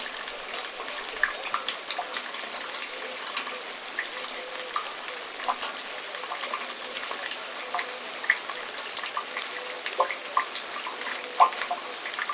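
Rain falling with water dripping: a steady patter of drops, dotted with clear, short plinking drips that land in water. A couple of louder drips come near the end.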